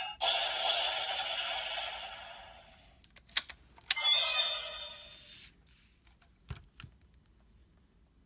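Bandai DX Orb Ring toy playing electronic sound effects through its small speaker: a noisy effect that fades over about three seconds, two sharp plastic clicks half a second apart, then a second, brighter effect that fades out, followed by a couple of faint knocks near the end.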